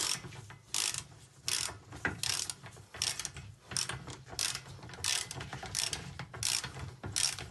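Hand ratchet wrench clicking on each back-stroke as a nut is run down on a suspension arm joint at the steering knuckle, a short burst of clicks about every two-thirds of a second.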